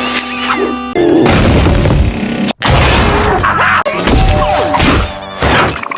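A string of loud sound-effect clips cut one after another: music mixed with crashes and hard impacts, changing abruptly several times and dropping out briefly in the middle.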